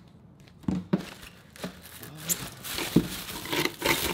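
Honeycomb paper packing wrap rustling and crinkling as hands pull it off a boxed item, with scattered sharp handling clicks. It starts about half a second in and gets busier toward the end.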